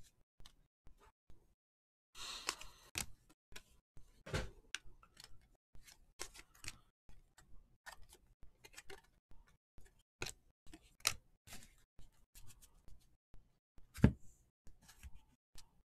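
Trading cards being handled and flipped through, a steady run of small clicks and soft card-on-card slides, with a brief rustle about two seconds in and one louder knock near the end.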